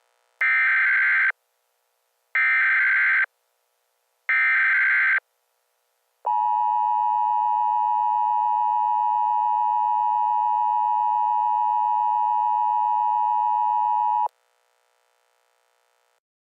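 Emergency Alert System signal: three short, screechy bursts of SAME header data, then the steady two-tone EAS attention signal held for about eight seconds before cutting off abruptly. This sequence marks the start of an emergency alert broadcast.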